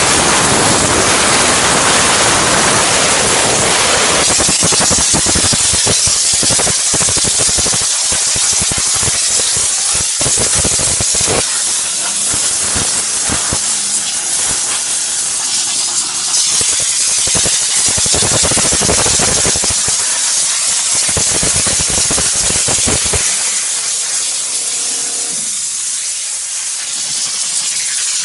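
High-pressure steam jetting from the steam gun of a stainless-steel mobile steam car washer: a loud, continuous hiss, uneven and crackling for much of it. The low rumble under the hiss drops away near the end, leaving a thinner hiss.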